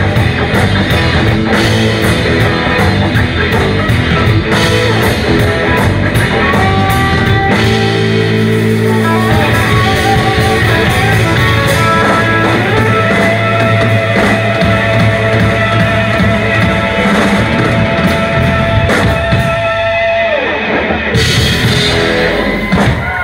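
Live electric blues band playing instrumentally: electric guitars, bass, keyboard and drum kit. It starts with a driving, rhythmic groove and cymbal strokes, then from about eight seconds in the band holds long sustained notes.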